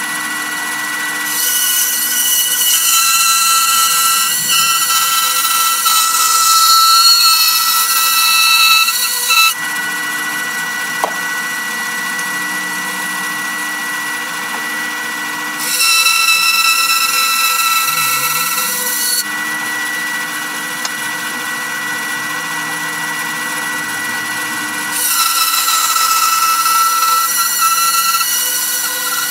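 Bandsaw running steadily and cutting a curve out of a wooden mould board, the cut growing louder and harsher in three spells of several seconds each while the blade runs free in between.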